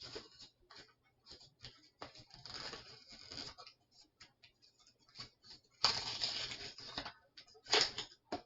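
Plastic blister pack of a Pokémon card promo being worked open by hand: crinkling and crackling plastic with many small clicks, and louder bursts about two seconds in, about six seconds in, and near the end.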